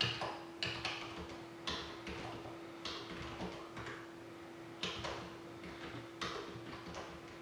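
Soft, irregular clicks and taps, roughly one a second, from a computer keyboard and mouse being used to set up an online randomizer, over a steady hum.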